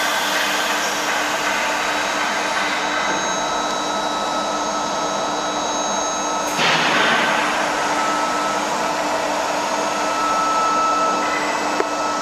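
Medium-frequency induction heating furnace running under power: a steady rushing noise with thin, steady high-pitched whines, surging louder and changing pitch suddenly about six and a half seconds in as the power is raised.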